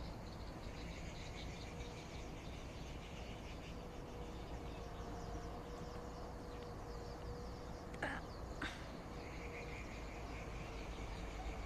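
Rural outdoor chorus of many small animals chirping in quick, overlapping repeated calls, over a low steady background noise. Two short sharp sounds cut in about eight seconds in.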